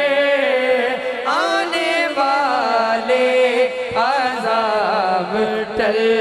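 Men singing an Urdu naat, a lead voice with a chorus, in long drawn-out melodic lines with held and gliding notes.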